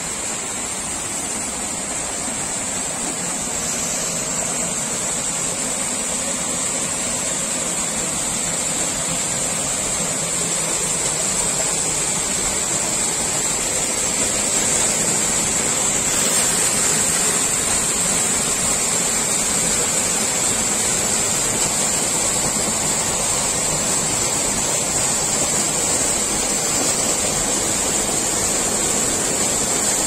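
Small mountain waterfall pouring into a rock pool: a steady rush of falling water that grows louder over the first fifteen seconds or so, then holds.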